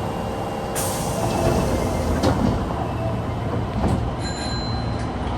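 Osaka Metro subway car 22962 running, a steady low rumble of wheels and motors, with a sharp noise about a second in and a brief thin high squeal about four seconds in. The car is known for an abnormal running noise.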